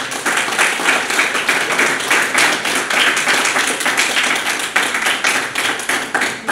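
Audience applauding: many hands clapping at once in a dense, steady patter.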